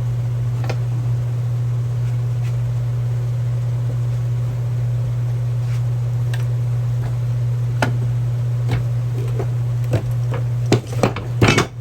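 Metal parts of a floor jack clicking and knocking as it is handled and turned over, a few scattered clicks and then a cluster of louder knocks near the end, over a steady low hum.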